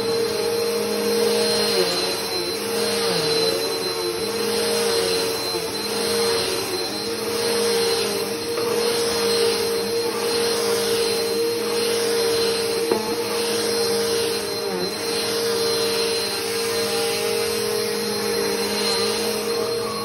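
Upright vacuum cleaner running on an area rug: a steady motor whine with a thin high tone above it over the rush of suction. The sound swells and eases every second or two as the vacuum is pushed back and forth over the rug.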